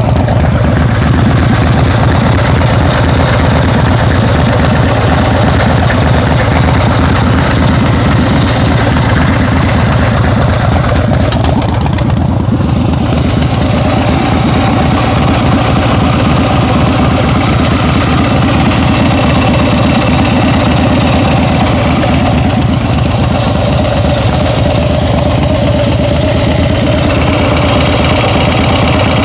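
Engine idling steadily with a ticking noise, which the owner thinks comes from the rear cylinder.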